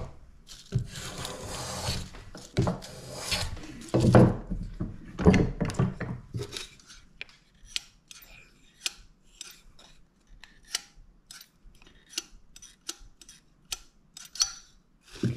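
Wood and tools rubbing and scraping as a freshly planed spruce bass bar is handled. Then a dial thickness caliper's spring-loaded jaw clicks sharply shut on the bar about once a second, about a dozen times, as its thickness is checked along its length.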